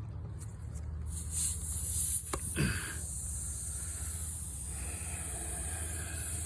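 Air hissing steadily out of a car tyre's puncture, starting about a second in as the screw is pulled from the tread, with a few short handling noises near the start.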